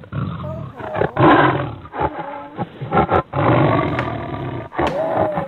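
Recorded animal roars, several in a row with short breaks between them, sounding like a sound-effect clip.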